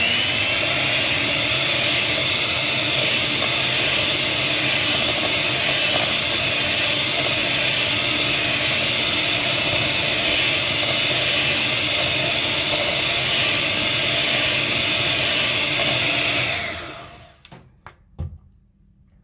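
Electric hand mixer running at a steady speed, its beaters whisking eggs, sugar and vanilla in a plastic bowl for a sponge batter. It switches off about three-quarters of the way through, followed by a few light knocks.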